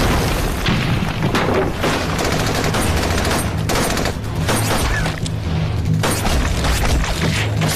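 Gunfight: many gunshots in quick succession, a shot about every half second, with rifles firing, over loud dramatic background music.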